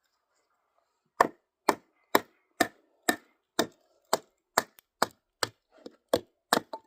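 Kindling being chopped: a blade striking wood in a steady rhythm about twice a second, a dozen or so sharp knocks starting about a second in.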